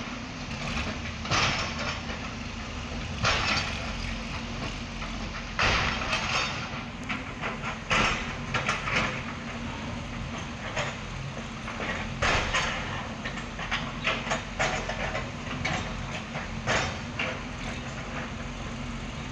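Diesel engine of a backhoe loader running steadily during building demolition, with a louder crash of breaking concrete and debris every few seconds.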